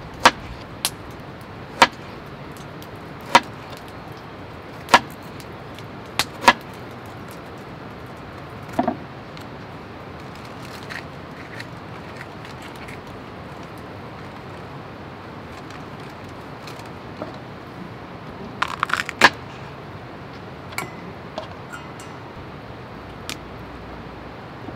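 A series of sharp knocks or clacks over a steady background hiss: several spaced a second or two apart in the first seven seconds, a quick cluster about three-quarters of the way through, and a few fainter ticks after.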